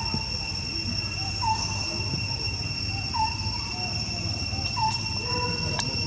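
Steady high-pitched drone of insects, with a short chirping call repeated about every second and a half.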